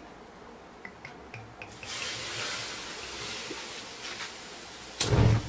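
Clear liquid poured from a glass over a salt-crusted chicken and spread over the crust by hand, with a few small drips and then a steady wet splashing and rubbing. A short loud thump comes near the end.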